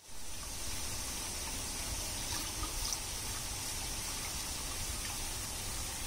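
Water from a row of umbrella (bell) fountain nozzles falling in thin domed sheets onto a pool, a steady splashing trickle that fades in at the very start.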